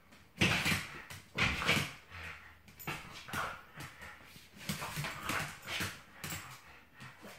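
Small spaniel whimpering and yipping in a series of short excited bursts, the loudest two in the first couple of seconds.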